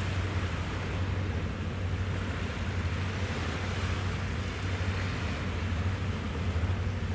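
JMSDF training support ship Kurobe under way, its engines giving a steady low hum, with an even hiss of wind and water over it.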